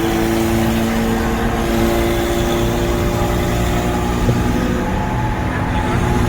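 Car engine running at a steady speed, a steady drone with no revving.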